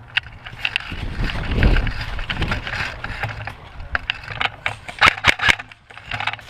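Rustling, rumbling movement noise, then about five seconds in a quick string of sharp cracks from an airsoft gun firing a short burst.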